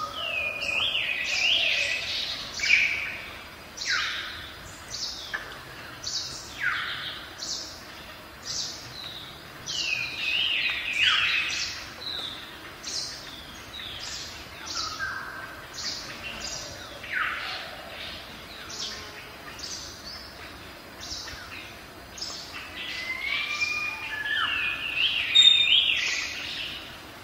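Birds singing: a continuous run of short, high, downward-sweeping notes and quick warbled phrases, loudest a little under three seconds in and again near the end.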